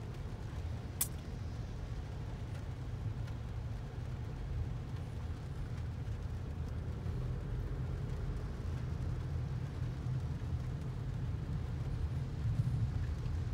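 Steady low rumble of a car heard from inside its cabin while it creeps along in slow traffic. There is one sharp click about a second in.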